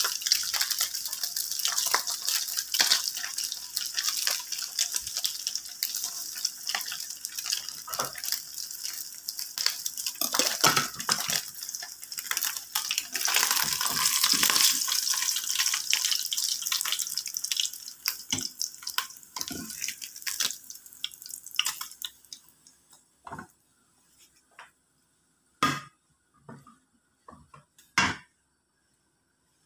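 Slices of Spam sizzling and crackling in hot oil in a frying pan, with spatula scrapes. About two-thirds of the way through the sizzle thins out and stops as the slices are lifted out, leaving a few separate clanks of spatula and pan.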